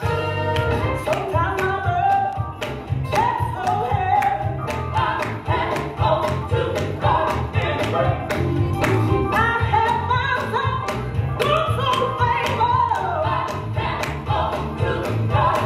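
Gospel music playing: several voices singing over a steady beat and bass.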